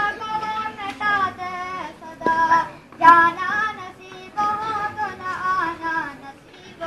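A boy singing a naat, an Urdu devotional song, solo in long wavering melodic phrases with short breaths between them.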